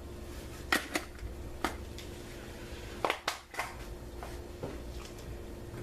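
A few light, sharp knocks and clicks of kitchen things being handled while dried seasonings are shaken onto chicken, two of them close together about three seconds in, over a steady low hum.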